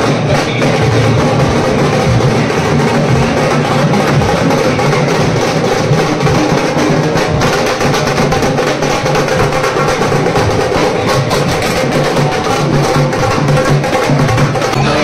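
Live drums played by a procession band: loud, continuous drumming with dense, sharp strokes.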